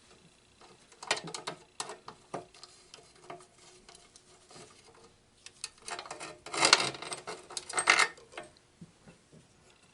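Small metal clicks and clinks from handling the old radio's chassis and parts, with a louder clattering rattle about six to eight seconds in.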